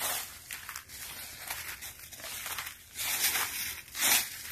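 Footsteps crunching and rustling through dry fallen leaf litter, one crackling crunch per step at an uneven walking pace, the loudest step near the end.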